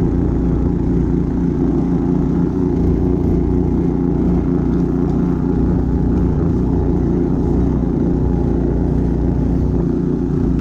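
Husky mini snowmobile's engine running steadily under load as the machine drives through snow, holding an even pitch.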